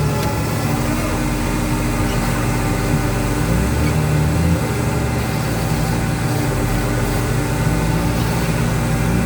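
A heavy machine's engine running steadily, its low notes shifting up and down every second or two.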